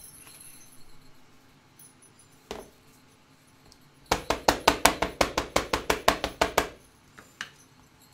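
Small ink pad tapped quickly against a clear stamp mounted in a stamp positioning tool, about six light taps a second for roughly two and a half seconds, starting about four seconds in. A single knock comes a little before.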